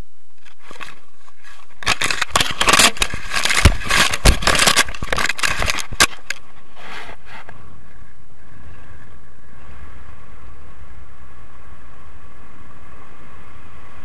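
Wind rushing over the microphone of a harness-mounted camera in paragliding flight, with loud gusty buffeting and scraping from about two to six seconds in, then a steady rush.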